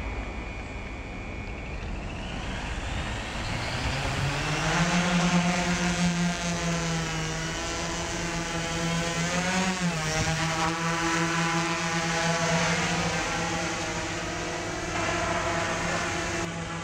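Large multirotor camera drone's electric motors and propellers spooling up for takeoff, rising in pitch over a few seconds, then a steady buzzing hum in flight that briefly rises and falls in pitch about ten seconds in.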